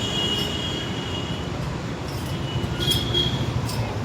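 Steady mechanical rumbling noise of heavy machinery, with a thin high whine that drops out after about a second and a half and returns briefly near the end.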